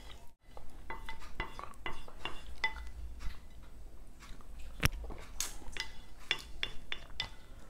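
Wooden spoon scraping and knocking against a pan while stirring thick carrot purée: a string of short scrapes and clicks, some with a brief ring from the pan, and one sharper knock a little past the middle.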